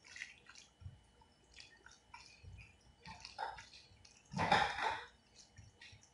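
Bare fingers squishing and mashing oily roasted aubergine bhorta against a ceramic bowl: a run of soft, wet squelches, the loudest about three quarters of the way through.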